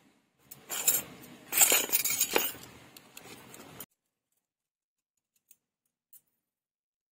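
Small stainless steel miniature kitchenware clinking and clattering as pieces are handled and knocked together for about three seconds, then cutting off suddenly, with two faint clicks afterwards.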